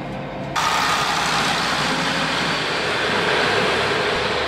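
Steady rumble inside a moving train carriage, cut off sharply about half a second in by a louder, steady rushing of train running noise.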